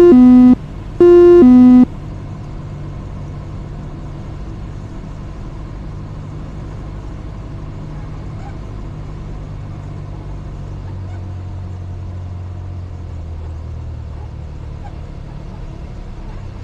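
Inside a Cessna 172 cockpit, the engine and propeller drone steadily, settling lower about eleven seconds in as power comes back on short final. In the first two seconds a loud two-tone electronic alert beeps twice, high then low.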